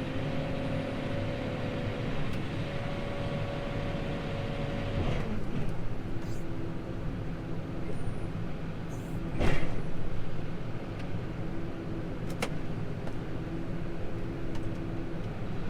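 Diesel engine of farm machinery running steadily, its pitch dropping about five seconds in. There is a sharp knock about halfway through and a lighter click a few seconds later.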